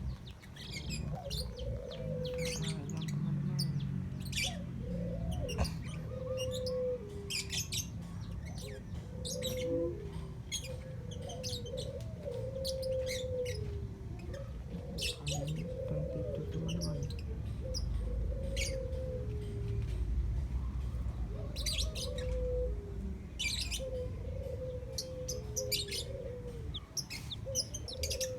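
Birds chirping: short, high calls repeating every second or so, over a lower wavering call and a low rumble.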